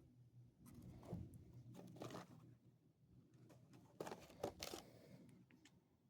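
Near silence, broken by a few faint rustles and soft clicks of handling about a second in, about two seconds in, and again around four to five seconds in.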